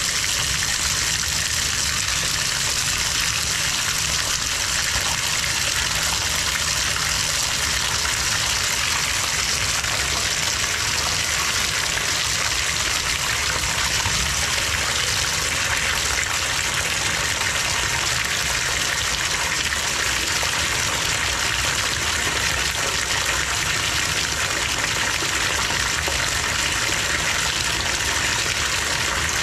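Water running steadily from a bathtub faucet at full flow into a tub with a blocked drain, building up a head of water to push against the clog.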